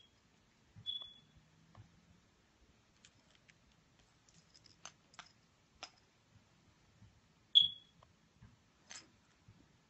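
Smartphone giving short, high pings as a cat's paw taps its touchscreen: three pings, the loudest about three-quarters of the way through, with light clicks and taps in between.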